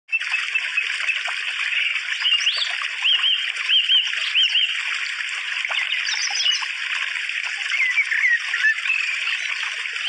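Water trickling and splashing steadily, with small birds chirping over it: a run of short, arched chirps a few seconds in and a few falling notes near the end.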